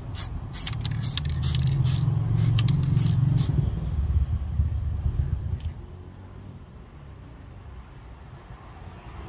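Aerosol spray can sprayed in short bursts onto a steel axe head, about ten quick hisses in the first three and a half seconds. Under them runs a low rumble that stops abruptly a little past halfway.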